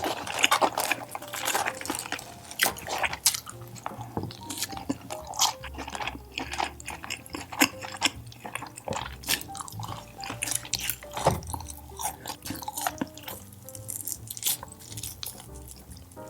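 Close-miked chewing and wet mouth sounds of someone eating tandoori chicken and kebabs: irregular lip smacks and moist clicks, some louder than others.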